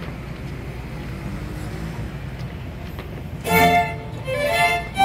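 A children's string orchestra of violins and cellos comes in together about three and a half seconds in, playing loud bowed chords in swelling strokes. Before that there is only low, steady background noise.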